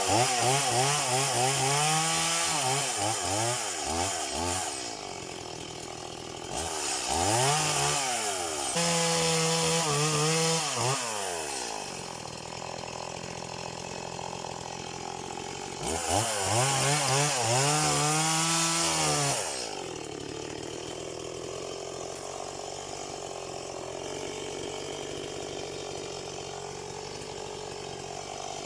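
Stihl MS180 two-stroke chainsaw revved up and down three times, each burst rising in pitch, holding, then falling back, and idling steadily between the bursts and through the end.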